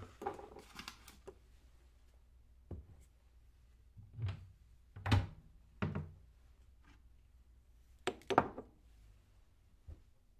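Kitchen clatter in a small room: a brief rattle of handling at the start, then single thuds and knocks every second or two, loudest a double knock about eight seconds in.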